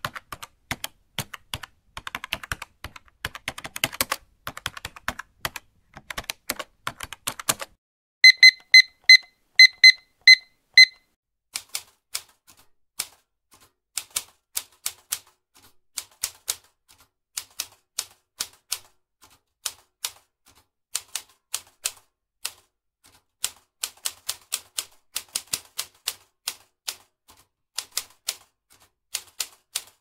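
Fast, dense keyboard typing for the first seven or so seconds. Then a run of about seven loud, evenly spaced electronic beeps. After that, slower key strikes in uneven bursts with short pauses.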